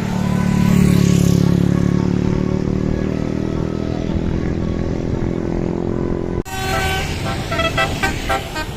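A bus engine runs loudly as the bus passes, peaking about a second in. After an abrupt cut near the end, a multi-tone Basuri telolet horn sounds a run of short melodic notes.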